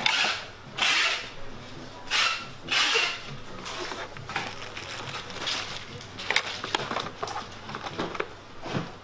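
Juki MO-6814S four-thread overlock sewing machine run on fabric in four short bursts of about half a second each in the first three seconds, followed by a run of light rapid clicks.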